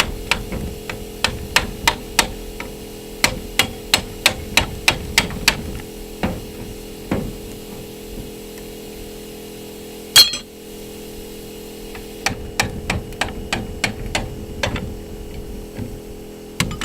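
Hammer blows on the steel shell of a plasma-cut AC compressor, banging it apart: sharp metal strikes in runs of about four a second, with one loud ringing clang about ten seconds in. A steady hum runs underneath.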